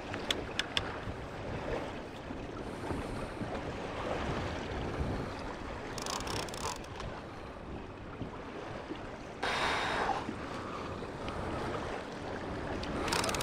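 Wind buffeting the microphone and choppy waves slapping against a fishing boat's hull, giving a steady rushing noise. There are a few light clicks near the start, and a louder rush of noise begins about nine and a half seconds in.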